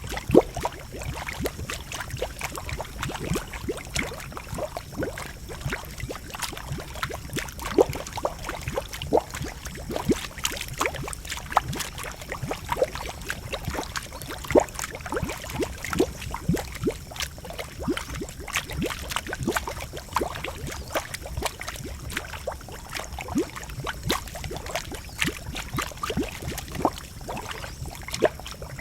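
Bubbling and gurgling of a boiling geothermal pool: a dense, irregular stream of pops and plops, some dropping in pitch, over a low rumble.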